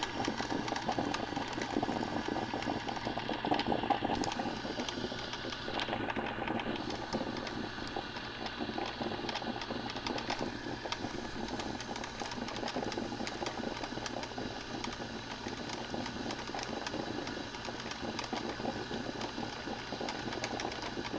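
Vintage Black & Decker thermal carafe drip coffee maker gurgling and sputtering steadily as its heater pushes hot water up through the brew cycle.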